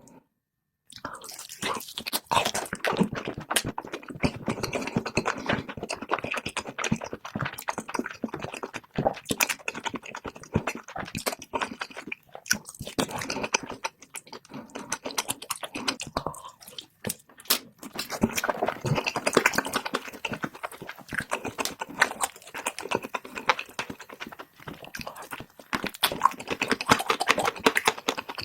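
Close-miked mukbang eating: a person chewing and biting with dense, crackly crunching, sped up to double speed. It starts after a moment of silence and goes on with only brief pauses.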